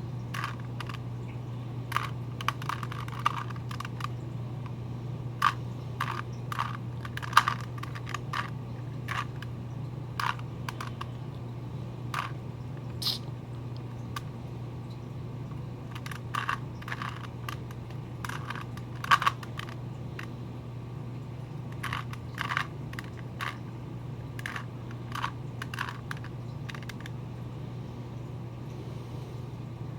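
Plastic Rubik's Cube being turned by hand: irregular clicks and short runs of clacks as the layers are twisted, with pauses between moves. A steady low hum runs underneath.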